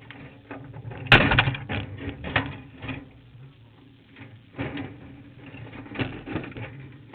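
Irregular rattling and knocking on a kart cross car standing still, heard through its onboard camera, over a faint low hum. The sharpest knock comes about a second in, and a cluster of rattles follows.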